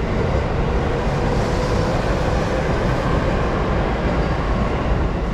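Steady din of a busy station platform at rush hour: a crowd of commuters walking off a JR Musashino Line train standing at the platform with its doors open, over the stopped train's steady low hum.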